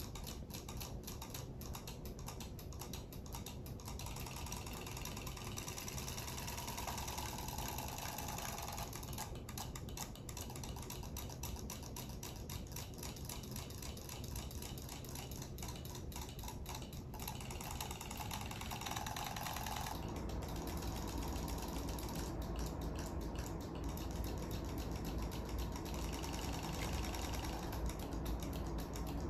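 Small battery-powered robotic toy fish swimming in a plastic basin of water, their tiny motors buzzing with rapid ticking from the tail mechanisms. The sound gets fuller in the low range about two-thirds of the way through.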